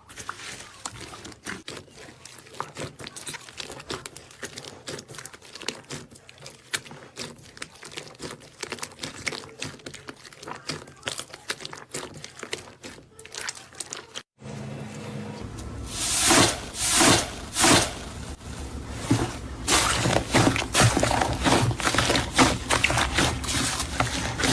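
Slime being squeezed and poked, making many small crackling, popping clicks. After a cut about 14 s in, it gets louder, with a few strong squishing presses and then dense crackling.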